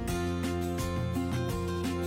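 Background music led by a plucked guitar, notes changing in a steady rhythm.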